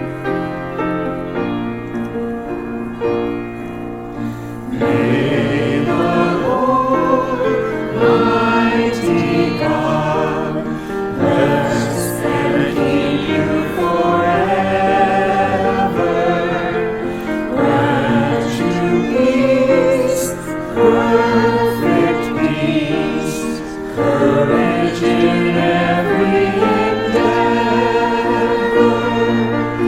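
Closing worship music: a piano plays alone for the first few seconds, then a choir comes in singing a hymn with the piano from about five seconds in.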